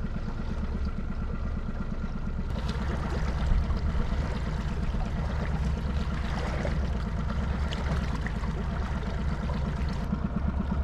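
Boat motor running steadily with water rushing and splashing along the hull; the rush of water grows louder a couple of seconds in and eases near the end.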